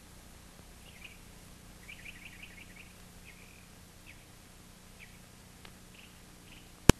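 Small birds chirping faintly, short high chirps, with a quick run of them about two seconds in, over a steady low hum. A single sharp, loud click comes near the end.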